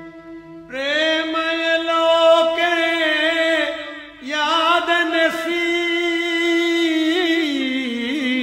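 A man chanting in long held notes that waver and slide between pitches, over a steady backing note. The voice comes in about a second in and breaks off briefly about four seconds in.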